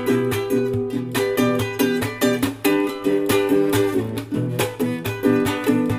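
Background music of plucked, strummed strings with a steady, even rhythm.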